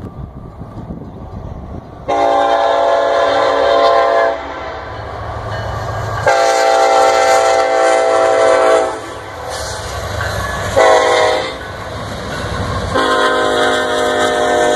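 Union Pacific diesel freight locomotives sounding their horn for a road crossing: long, long, short, long, the last blast starting near the end and still held. A low diesel rumble runs underneath the blasts.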